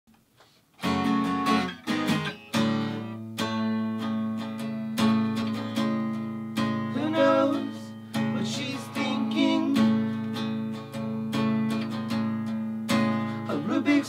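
Two acoustic guitars strumming chords together in a steady rhythm, starting about a second in: the instrumental opening of a song.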